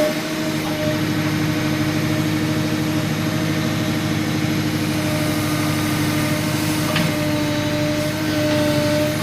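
Tractor loader backhoe's diesel engine running steadily, with a slight waver in pitch and a brief click about seven seconds in.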